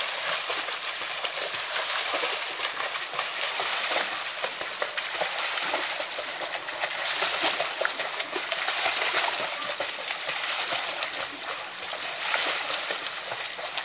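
Children flutter-kicking on kickboards in a swimming pool: a steady, irregular splashing of legs beating the water surface.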